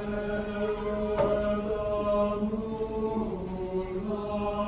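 Men's choir singing a hymn in slow, long-held chords.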